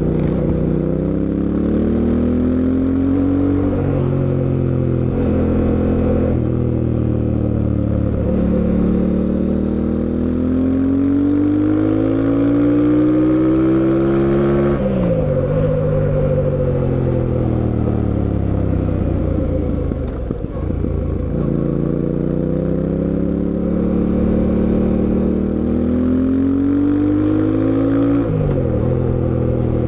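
Fantic Caballero 700 Scrambler's 689 cc parallel-twin engine pulling through the gears under way. The pitch climbs with the revs and drops sharply at gear changes about 4, 15 and 28 seconds in, with the throttle eased off briefly around 20 seconds.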